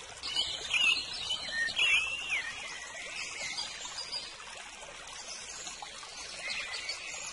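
Small birds chirping and singing over the steady trickle of running water, with the birdsong busiest in the first couple of seconds.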